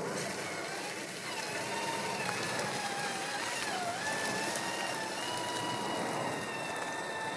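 Electric drive motor and gearbox of a 1/8-scale RC trail truck whining as it crawls, the pitch dipping and rising with the throttle. Dry leaves crackle under the tyres.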